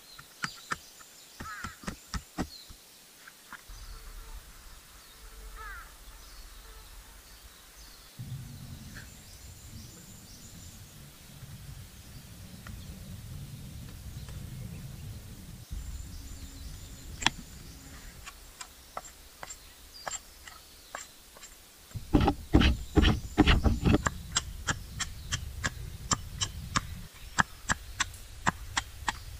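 Sharp strikes on wood: a few knocks early, then a quick flurry of hard blows about three quarters of the way through, followed by evenly spaced knocks about two or three a second. Birds call faintly and a low rumble runs underneath.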